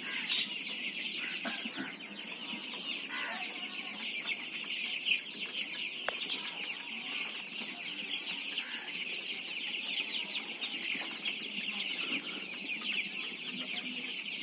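A large group of desi chicks peeping together in a dense, continuous chorus of high-pitched calls, with a few lower calls now and then.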